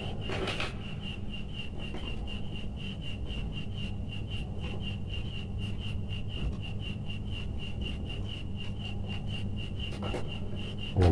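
Faint rubbing and scraping as copper electrical wires are twisted together by hand and with pliers, with a brief rustle about half a second in and again near the end. Beneath it run a steady low hum and a faint high-pitched tone pulsing about four times a second.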